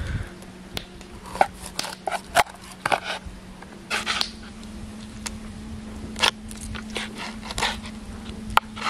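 Large kitchen knife chopping a whole trout into steaks on a bamboo cutting board: an irregular series of sharp cracks and knocks as the blade goes through the fish and strikes the board.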